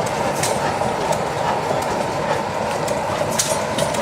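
Turbine engine of a turbine-converted 1967 Cub Cadet 125 garden tractor running steadily, a constant loud rush, with sharp clicks scattered through it.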